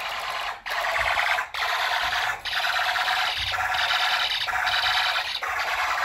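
Fire alarm horn strobe sounding a loud, buzzing horn tone that breaks off briefly about once a second: the system is in alarm.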